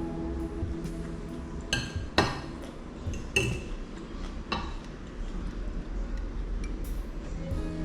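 Cutlery clinking against a plate as someone eats, with four sharp clinks in the first few seconds.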